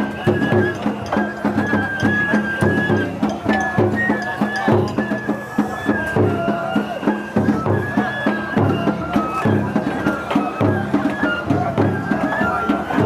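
Japanese festival ohayashi music: a high flute melody moving in steps over rapid, steady drumming.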